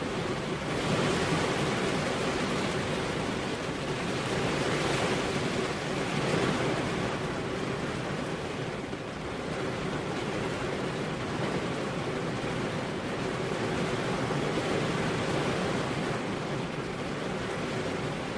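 Steady rain and wind rushing, swelling louder a few times in the first seven seconds.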